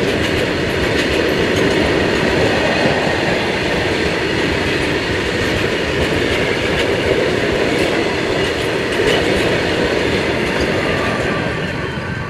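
Freight train of BOXNHL open steel wagons rolling past at speed: a steady loud rumble and rattle of steel wheels on the rails with scattered clicks over the rail joints. It starts to fade near the end as the brake van at the tail goes by.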